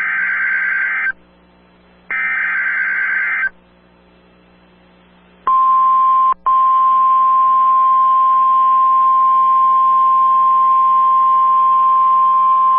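NOAA Weather Radio EAS alert tones for a severe thunderstorm warning. First comes the end of one SAME digital header burst, then about a second later a second full burst of data tones, each burst lasting about a second. After a pause of about two seconds, the steady 1050 Hz warning alarm tone starts, breaks off briefly under a second later, and then holds steady.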